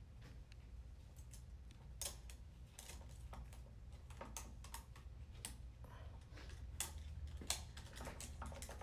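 Irregular light metal clicks and taps as a steel snap ring is worked into its groove in the forward clutch drum of a CVT transmission, the ring and clutch plates clicking against the drum. A few sharper clicks come about two seconds in and near the end.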